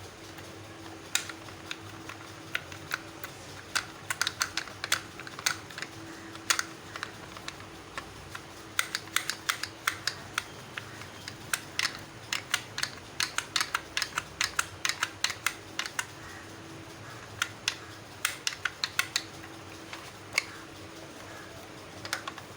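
Many light, sharp clicks come at an uneven pace, some singly and some in quick runs, over a faint steady hum.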